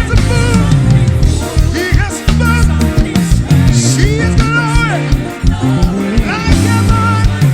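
Live worship band playing an upbeat song, with drums and bass under wavering melodic runs.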